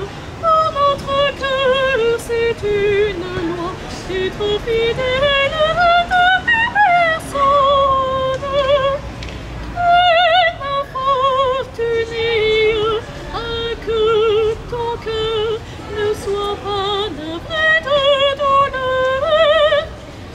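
A woman singing solo and unaccompanied, a slow melody of long held notes with a wide vibrato in a trained, operatic style.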